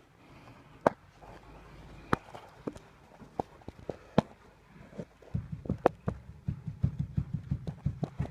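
Chevrolet Captiva's anti-roll bar knocking: a string of sharp, separate knocks, with a fast run of low thuds over the second half. The knock comes from worn-out stabilizer bar bushings.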